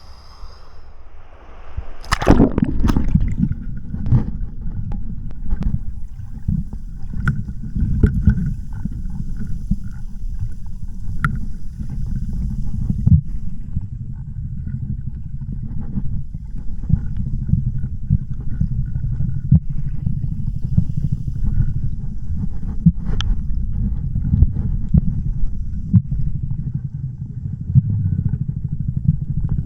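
Strong wind buffeting the microphone on a stormy seashore: a heavy, uneven low rumble with gusts and small knocks, starting abruptly about two seconds in.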